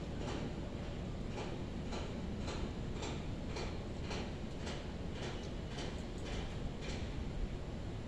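Water dripping in a regular rhythm, sharp light ticks about twice a second that stop about seven seconds in, over a steady low outdoor rumble.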